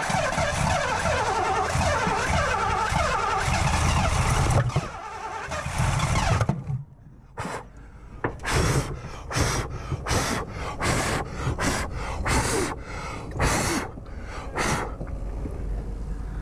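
A 1984 Ford LTD Crown Victoria's fuel-injected V8 cranking and running roughly for about five seconds, then a string of short sharp bursts, roughly one every half second to second, as it backfires up through the Central Fuel Injection unit with flames flaring from the top of the engine. The backfiring points to the fuel delivery trouble the car is being worked on for.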